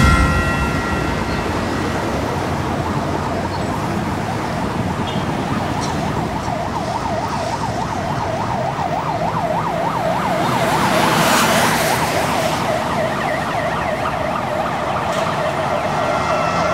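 City street traffic with an ambulance siren in a fast rising-and-falling warble. The siren comes in about six seconds in, is loudest around eleven to twelve seconds, and then fades.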